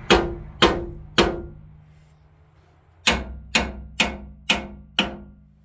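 Hammer blows on a rust-seized snowblower auger, struck to break it loose from its shaft. Three quick strikes, a pause of about two seconds, then five more at about two a second, each ringing briefly.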